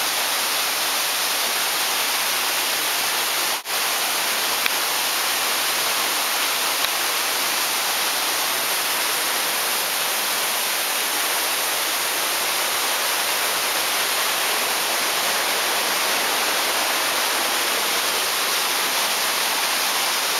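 Underground waterfall in a cave, its falling water making a steady, even rush; the sound cuts out for an instant about three and a half seconds in.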